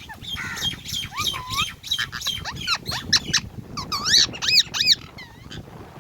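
Ringneck parakeet giving a fast run of short, shrill chirps and squeaks that sweep up and down in pitch, easing off near the end.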